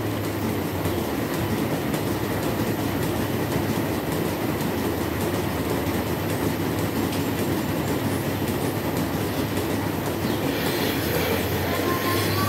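Dairy milking-shed machinery running steadily: a constant mechanical rumble and hum with a fine rattle, no pauses.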